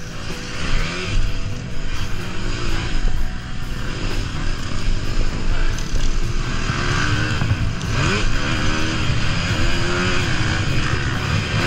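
Motocross bike engine heard from on board, revving up and easing off over and over as the rider works through the throttle, with a steep climb in revs about eight seconds in.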